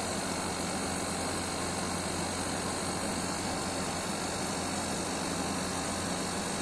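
Window air conditioner running steadily, a constant low hum under an even rush of fan air, freshly recharged with R410a and cooling.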